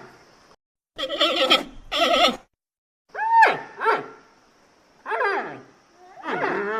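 Giant panda calls: about six short, pitched cries in a row, split by brief silent gaps. Several fall in pitch, and one near the middle arches up and then down.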